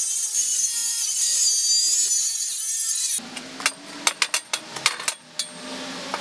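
Angle grinder cutting through steel box tubing: a steady high whine and hiss that cuts off abruptly about three seconds in. Then a quick series of sharp metallic clanks and knocks as the cut-free steel frame is handled and lifted apart.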